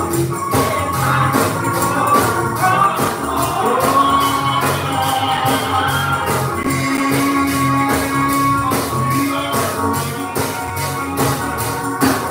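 A congregation singing a gospel hymn to electric keyboard accompaniment, with a tambourine shaken in a steady beat.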